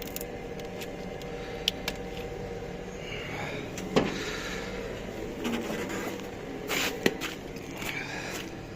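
Refrigeration unit's engine running steadily, with a few sharp knocks standing out about two, four and seven seconds in. This is the knock that the owner is trying to diagnose, cause unknown.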